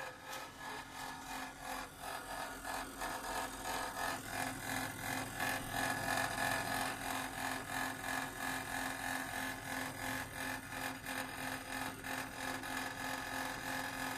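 Sanyo SR-C580CV1 refrigerator's compressor running at full speed, with loud resonance: a steady hum under a rough, buzzing rattle that wavers in loudness about twice a second.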